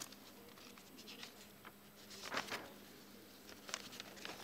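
Faint handling noise: soft rustles and light clicks, a little stronger about two seconds in and again near the end, over a faint steady hum.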